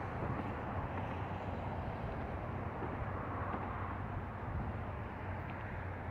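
Steady distant rumble of vehicles and engines, with a low even hum underneath.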